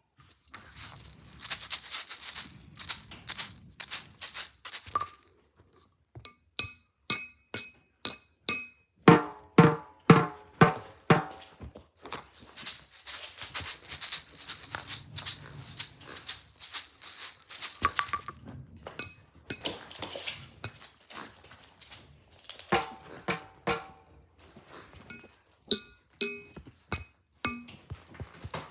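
A sequence of handheld rattling and shaking sounds, alternating with runs of sharp clicks and taps. Some of the strikes ring briefly at a pitch.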